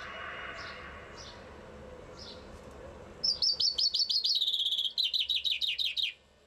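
Common chaffinch singing one full song of about three seconds, starting about three seconds in: a quick run of descending notes that speeds up into a faster trill and ends in a falling flourish. A few faint short chirps come before it.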